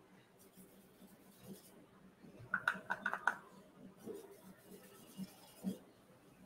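Faint sounds of a paintbrush working watercolour paint on a plastic palette: a quick run of five or six light clicks around the middle, then a few soft knocks.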